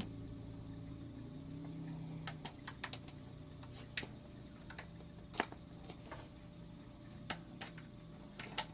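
Scattered light metallic clicks and taps, irregularly spaced, from hands working the power-supply screws and parts in a steel PC case.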